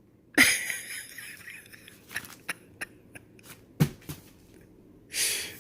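Handling noises from a parcel and its contents: a rustle, then a series of light clicks and taps with one sharper knock partway through, and a short breathy rush of noise near the end.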